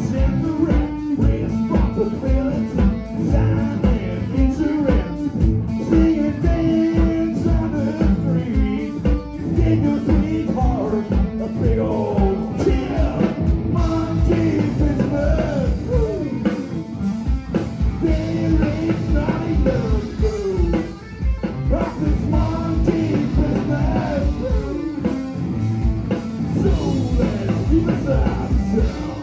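Live blues-rock band playing: electric guitar and drum kit, with a singer's voice at times.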